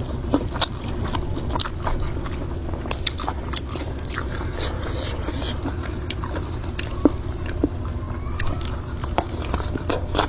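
Scattered light clicks and knocks of food being prepared, at irregular spacing, over a steady low hum.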